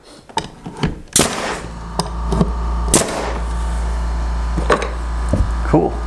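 Pneumatic nail gun firing nails into walnut trim, two sharp shots about two seconds apart with lighter knocks around them. An air compressor kicks on just after the first shot and runs with a steady low hum.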